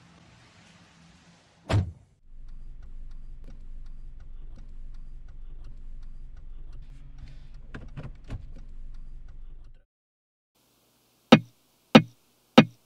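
A car door shuts with one loud thump, then a car's engine runs with a steady low hum for about seven seconds, with a few light clicks, before it stops. Near the end come three sharp, evenly spaced clicks: a count-in to the song.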